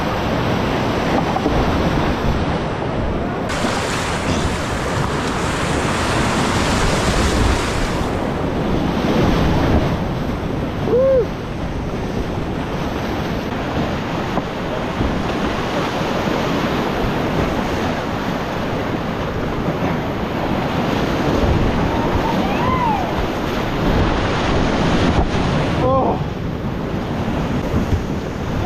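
Whitewater rapids of a steep boulder creek rushing steadily, heard from a kayak running them. A few short pitched yelps come about a third of the way in and again near the end.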